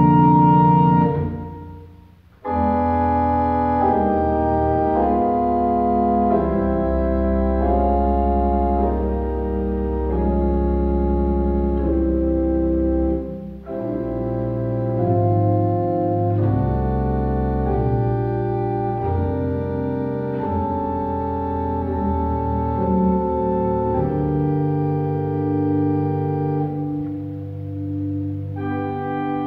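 Church pipe organ playing slow, sustained chords. The first phrase dies away about a second in, and after a short pause the next begins. A brief break falls about halfway through.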